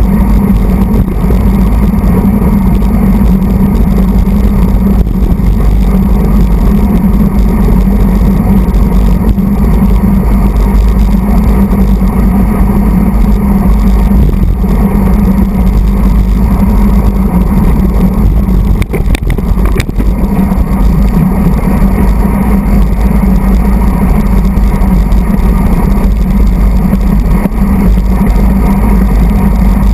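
Loud, steady wind rumble buffeting the microphone of a handlebar-mounted camera on a road bike ridden at race speed, mixed with tyre noise on the road. A few sharp clicks come about nineteen seconds in.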